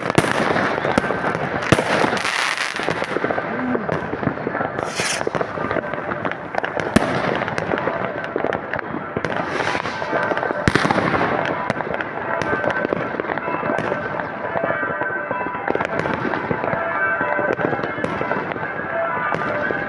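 Many fireworks and firecrackers going off at once: continuous crackling and popping with sharp bangs scattered through it, the loudest about two seconds in, at about seven seconds and at about eleven seconds.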